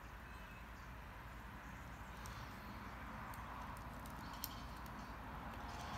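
A few light clicks of stainless steel Rolex watch bracelets being set down on a cloth-covered table, the sharpest about four and a half seconds in, over a faint steady background hiss.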